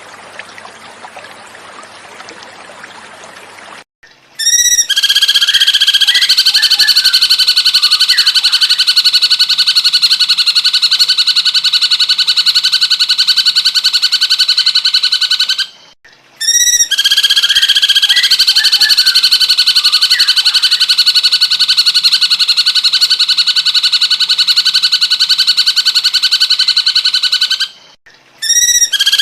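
Running water trickling softly for about four seconds, then a cucak cungkok calling loudly: a few quick rising notes followed by a long, rapid buzzing trill of about eleven seconds. After a short break the same call repeats, and a third begins near the end.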